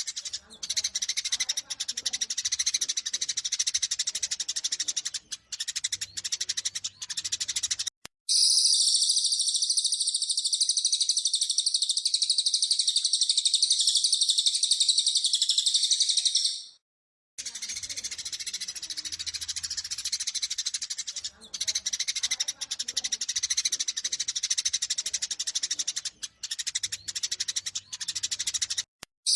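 Recorded Eurasian tree sparrows chattering and chirping rapidly in a fighting display. About 8 seconds in, the chatter gives way to a second bird's loud, unbroken high trill lasting about 8 seconds. The sparrow chatter then resumes.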